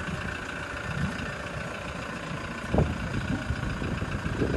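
A vehicle engine idling steadily, with a few dull low thumps, the loudest about three seconds in.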